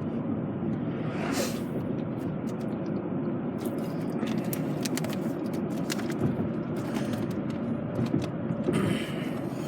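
Steady low rumble of a car's cabin, with scattered small clicks and a brief rustle about a second and a half in.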